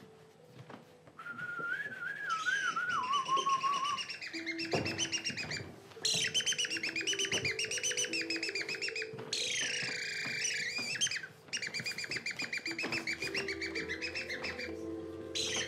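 Recorded birdsong played as the robin's song: phrases of rapid chirping trills with short breaks, following a brief wavering whistle near the start. Soft sustained music notes sit underneath.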